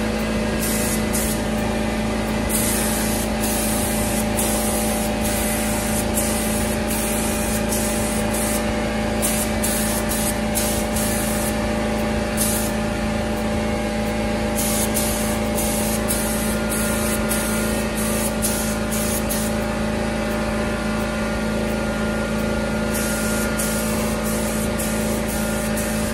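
Compressed-air paint spray gun hissing in a string of trigger pulls, some short and some several seconds long, while an air compressor hums steadily underneath.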